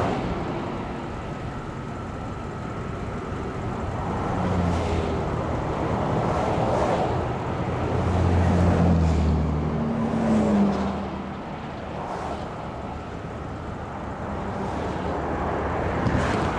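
Boeing TC-135W's four CFM56 (F108) turbofan engines on a low approach with the gear down, the jet noise building as it nears and passes overhead. It is loudest around the middle, with a low hum that drops slightly in pitch as it goes by.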